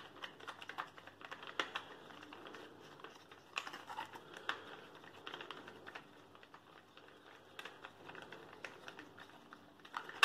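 Irregular light plastic clicks and taps from a GoXtreme REBEL action camera's clear waterproof housing and its plastic mount being handled and worked apart by hand.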